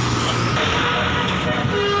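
Bus engine and road noise, then a multi-tone 'telolet' bus horn starts playing a tune about a second and a half in, its steady notes stepping from one pitch to another.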